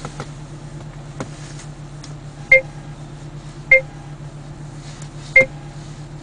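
Three short electronic key beeps from a Pioneer AVIC-Z140BH touchscreen head unit, a second or two apart, as on-screen menu buttons are pressed to reach the Bluetooth settings. A steady low hum runs underneath.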